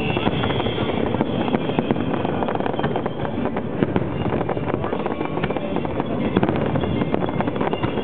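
Aerial fireworks going off in quick succession: a continuous din of overlapping bursts with dense, irregular crackling and no single standout blast.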